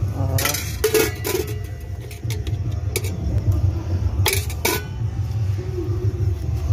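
Steel utensils clinking against stainless steel pots: a few separate sharp clinks over a steady low rumble, with a brief voice near the start.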